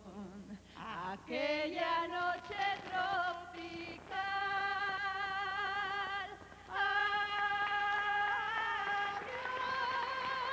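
Music with a woman's voice singing, short gliding notes at first, then long held notes with vibrato.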